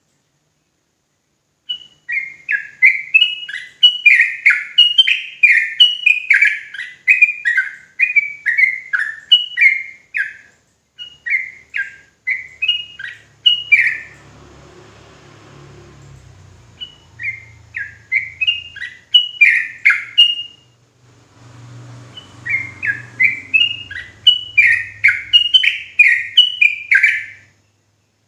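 Yellow-vented bulbul singing a fast run of bubbly, chattering notes, about two a second, in three bursts with two short breaks. This is the rapid 'ropel' song that keepers play to provoke other bulbuls into singing. A faint low rumble fills the breaks.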